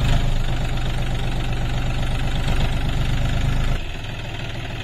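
John Deere 5050D tractor's three-cylinder diesel engine running steadily, dropping to a quieter, lower note a little under four seconds in.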